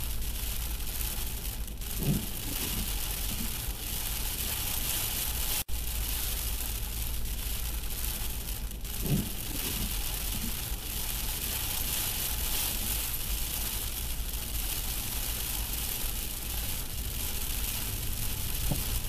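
Steady road and rain noise heard from inside a truck driving on a wet road, drops spattering the windshield. A brief low sound stands out about two seconds in and again about nine seconds in.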